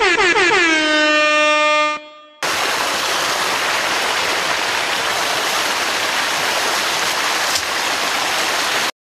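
A loud horn-like tone that glides down in pitch and settles on a low note, lasting about two seconds. After a short break, a steady rushing hiss starts abruptly and cuts off just before the end.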